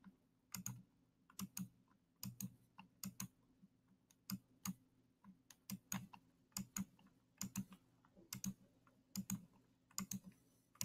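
Computer mouse button clicking, about fifteen short press-and-release clicks at an uneven pace of roughly one a second, each click playing one note of a melody on an on-screen xylophone.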